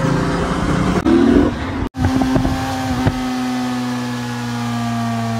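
Motorcycle engine running after a kick-start. After an abrupt cut about two seconds in, it holds a steady engine note whose pitch slowly falls, as the bike is ridden.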